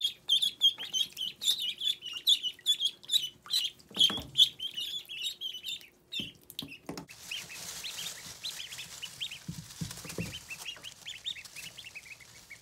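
Indian runner ducklings peeping repeatedly in a rapid, high-pitched run. After about seven seconds the peeping turns fainter over a soft hiss, with a couple of dull thumps.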